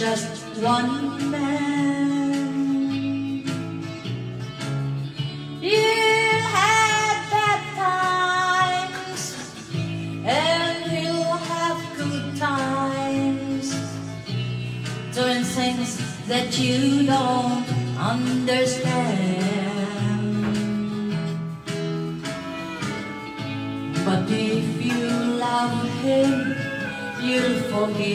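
A woman singing karaoke into a handheld microphone over backing music.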